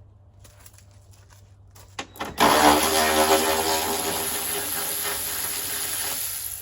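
A power tool with a socket runs for about four seconds, starting a couple of seconds in after a few clicks and stopping suddenly, as bolts on the front end are run loose.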